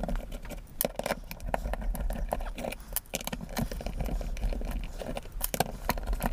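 Screws being undone from the plastic housing of a Buildskill corded drill: irregular small clicks, scrapes and rattles of the screwdriver and the drill body being handled.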